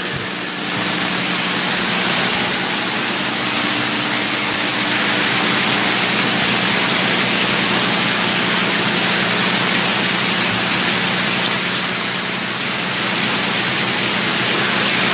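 Steady hiss with a low hum and a faint high whine, with a few faint clicks.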